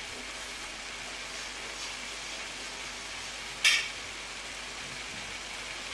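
Sauerkraut with bacon and onion sizzling gently in an enamelled skillet over low heat, a steady hiss with one sharp pop a little past the middle.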